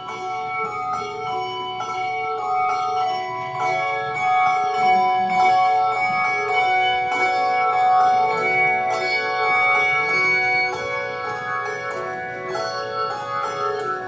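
Handbell choir playing a tune: brass handbells rung one after another, their notes ringing on and overlapping.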